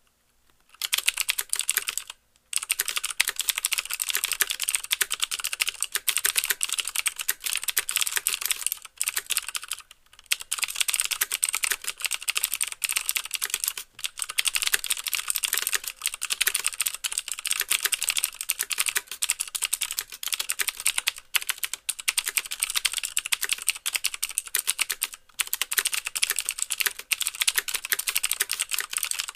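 Fast continuous typing on a mechanical keyboard with clicky Cherry MX Blue switches: crisp clicks from each switch, with the keys bottoming out in a clack. The typing is rapid and dense, with a few brief pauses, one about two seconds in and others later.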